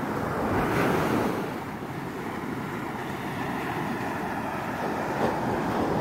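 Ocean surf breaking and washing up a sandy beach, with wind on the microphone; the surf swells briefly about a second in.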